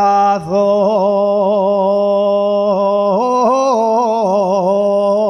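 Asturian tonada singing: one voice holds out a long note of the song's line, winding it through quick ornamental turns in pitch.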